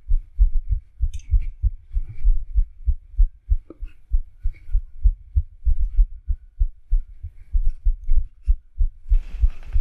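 Heartbeat sound effect: deep, quick thumps, several a second, like a racing pulse. About nine seconds in a steady hiss of room noise joins.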